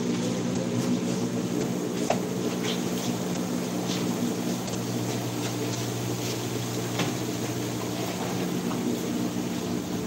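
A steady low machine hum, with a few light clicks and knocks on top.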